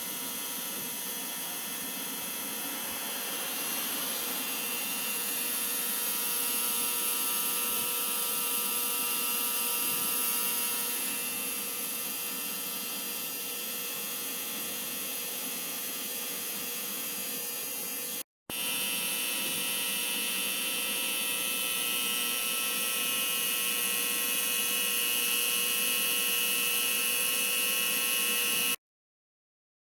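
A steady high-pitched machine whine with hiss, in two stretches split by a brief cut about two-thirds of the way in and stopping abruptly near the end.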